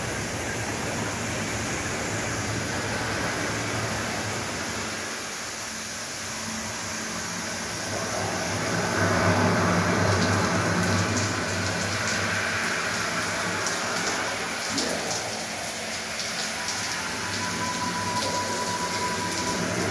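Water spraying steadily from a large ceiling rain-shower head onto the tiled floor of an experience shower, an even rain-like hiss with a low hum underneath that grows a little louder after about eight seconds.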